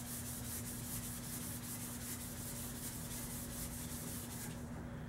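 A polishing pad rubbed quickly up and down a steel Crosman 760 air rifle barrel, polishing it to a shine: an even run of hissing strokes, about four a second, that stops about four and a half seconds in.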